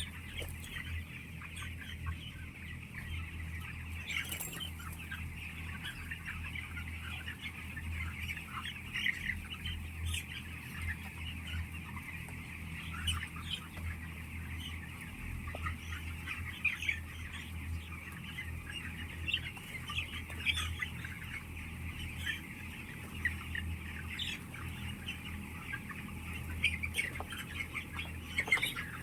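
A flock of chickens in a poultry house, many birds calling at once in a continuous overlapping chatter, over a steady low hum.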